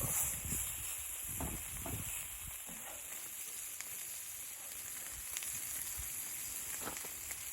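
Steady sizzling hiss with scattered small crackles and a few soft knocks.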